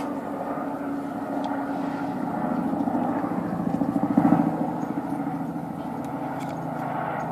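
A steady engine drone whose pitch drops about halfway through, with a pulsing beat around four seconds in and a few faint clicks.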